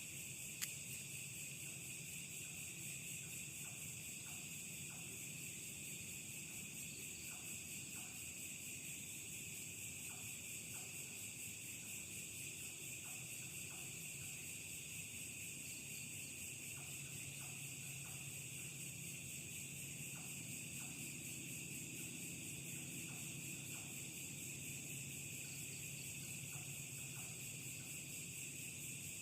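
Night insect chorus, crickets trilling steadily and high-pitched, with one sharp click about half a second in.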